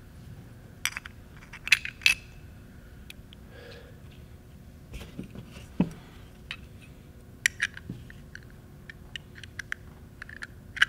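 Small steel parts of a Chicago Palm Protector palm pistol clicking and clinking as it is reassembled by hand, with the turret cylinder set back into the frame and the side plate fitted on. There is a cluster of sharp clicks in the first two seconds, then scattered lighter ticks and clinks.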